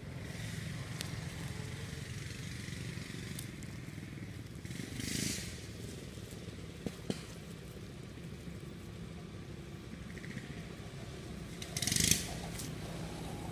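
Young macaques scuffling in grass and dry leaves, with two short rustles, about five seconds in and a louder one near the end, over a steady low motor rumble.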